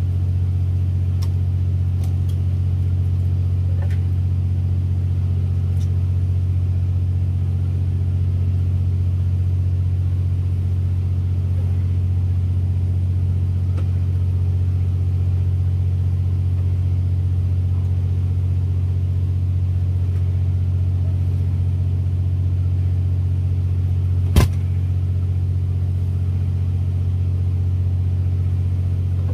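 Steady low engine drone running evenly, with one sharp click about 24 seconds in.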